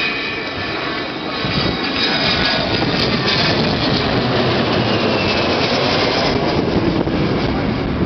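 Avro Vulcan's four Rolls-Royce Olympus turbojets as the bomber flies low overhead: a loud jet roar that swells about a second and a half in and stays loud, with a faint whine dropping in pitch as it passes.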